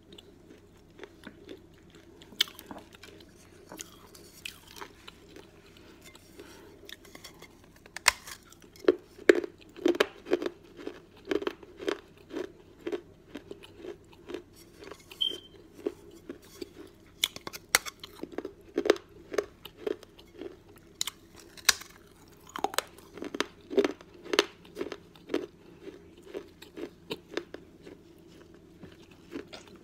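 A person biting off and chewing pieces of a fired clay cantarito cup: dry, hard crunching. A few scattered crunches come first, then steady chewing crunches from about eight seconds in, thinning near the end.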